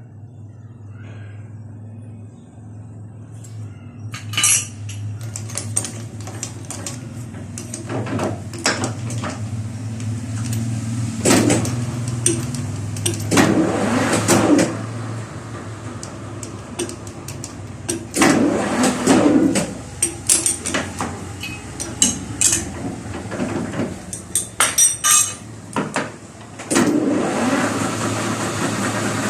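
Metal tools and parts clinking and clattering as they are handled, in irregular knocks with louder spells, over a steady low hum. Near the end a steady machine running sound starts up.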